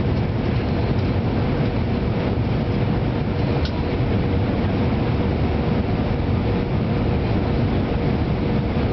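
Steady cabin roar of an Airbus A319 airliner in flight on its descent to land, the sound of its engines and the airflow, heaviest in the low range, with a faint steady hum above it.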